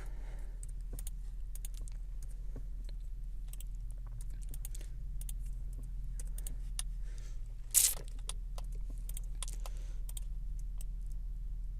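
Scattered clicks of computer keyboard keys over a steady low hum, with one louder sharp noise about eight seconds in.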